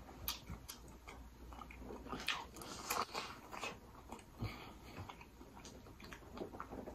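Close-miked chewing of buttered corn on the cob: scattered wet mouth clicks and smacks.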